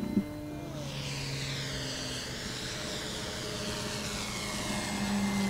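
Electric motor and propeller of an E-Flite Carbon-Z Cessna 150 RC model plane flying past, a steady whine with propeller rush whose pitch drops slightly about a second in. A short thump comes right at the start.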